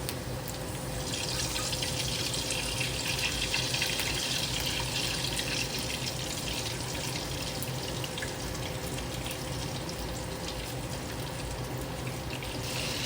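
Shark fin dumplings sizzling in hot oil in a pan, a steady frying hiss that swells about a second in, over a low steady hum.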